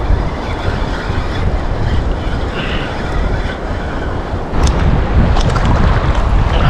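Wind rushing over the microphone with waves lapping in the surf. About four and a half seconds in the rushing grows louder, with sharp crackles over it.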